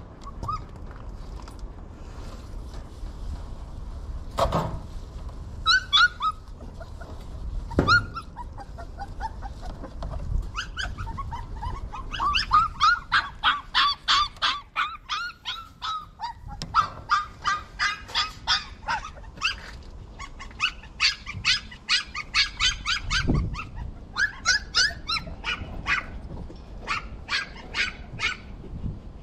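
Young puppies whimpering and yipping in quick runs of short, high cries, several a second. Two sharp knocks come before the cries begin.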